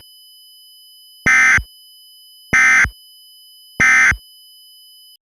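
Emergency Alert System end-of-message code: three identical short bursts of SAME digital data tones, each under half a second and a little over a second apart, marking the end of the alert. A faint steady high tone runs underneath and cuts off near the end.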